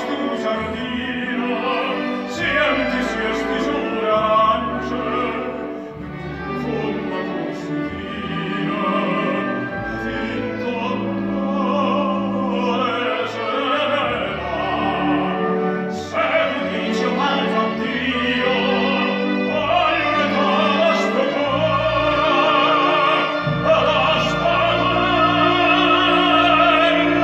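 Operatic tenor singing a Neapolitan song with wide vibrato, accompanied by a full symphony orchestra with strings.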